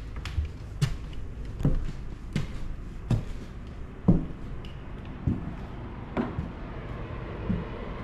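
Footsteps on old wooden stairs and bare floorboards, about one step a second, some steps with a short creak of the boards.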